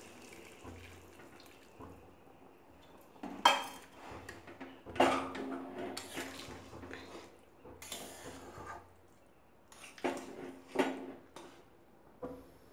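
Metal spatula stirring a watery jackfruit curry in a steel kadai, knocking and scraping against the pan about seven times, each knock leaving a short metallic ring.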